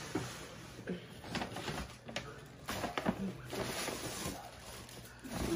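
Paper gift bag rustling and crinkling as hands rummage through it, in a run of short, irregular crackles.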